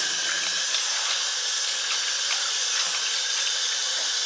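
Water running steadily from a tap or shower, a constant hiss with faint small ticks of splashing.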